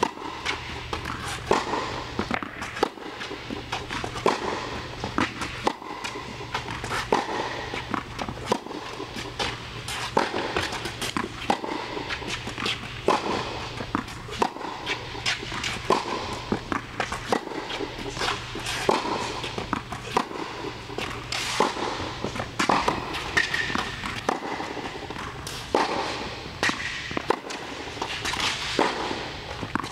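Tennis balls struck by a racquet and bouncing on an indoor hard court: sharp pops recurring irregularly about every second, over a steady low hum, with a few short squeaks near the end.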